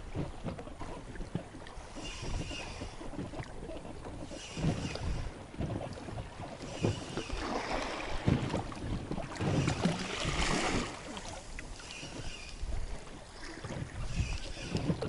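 Wind buffeting the microphone and water lapping, with short brighter rustling sounds every couple of seconds and a louder swell of noise about halfway through.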